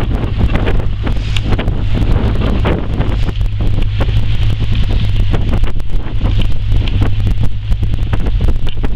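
Indmar 5.7-litre V8 inboard marine engine burbling steadily just above idle, its low even drone under heavy wind buffeting on the microphone.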